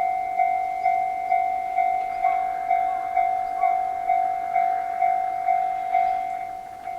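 Japanese level crossing's electronic warning bell ringing a two-tone chime about twice a second, growing quieter near the end. The passing train's running noise sounds faintly underneath in the middle.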